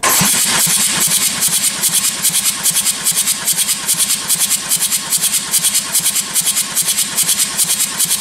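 Ford 2.0 TDCi four-cylinder diesel engine cranked on its starter motor, with quick, even pulses of the compression strokes; it starts abruptly. The engine is being turned over for a compression test of the third cylinder, which reads 28 kg/cm².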